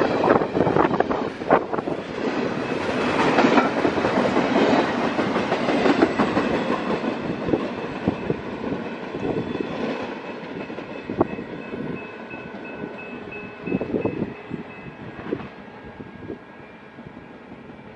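Intermodal freight train's well cars rolling past, steel wheels clicking over the rail joints. The sound fades away after the last car goes by, about eight seconds in, leaving only a few scattered clicks as the train recedes.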